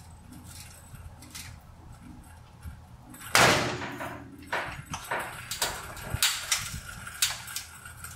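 Metal clanks as a 1956 Chevrolet's front lower control arm and coil spring are let down on a floor jack. A loud bang comes a little over three seconds in, with a short noisy tail, and is followed by a string of sharp knocks.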